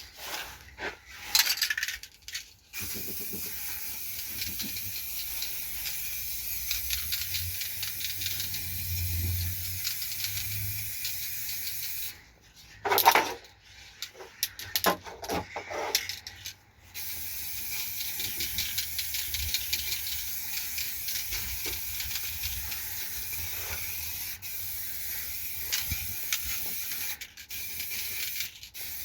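Electric arc welding: a steady crackling sizzle in two long runs, with a pause of a few seconds in the middle broken by a few short bursts.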